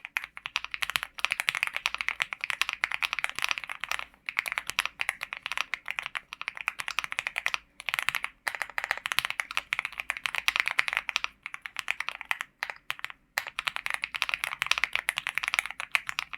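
Fast, continuous typing on a LEOBOG Hi75 mechanical keyboard fitted with Akko CS Jelly Black switches: a rapid stream of key clacks, with short breaks about four, eight and thirteen seconds in.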